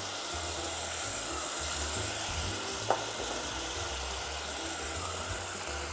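Steady sizzling of vegetables cooking in a pot on the gas hob, with one light clink about three seconds in.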